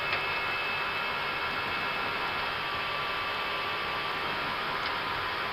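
Steady background noise on the flight deck of an Airbus A320 in the climb: an even hiss with a few faint, steady high-pitched tones and a low hum. There is a light click right at the start and a fainter one near the end.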